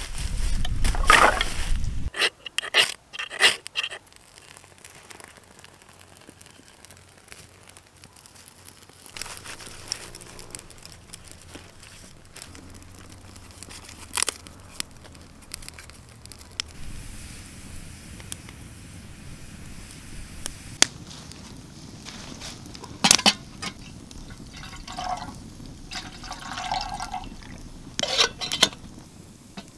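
Rustling leaves and logs knocking together as an armload of firewood is dropped, followed by scattered single crackles of a small fire. Near the end, water is poured from a plastic bottle into a metal camping kettle.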